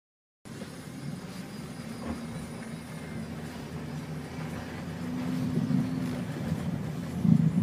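Car engine and tyre rumble heard from inside the cabin while driving a rutted dirt track, starting abruptly about half a second in and growing somewhat louder, with a louder thump near the end as the car jolts.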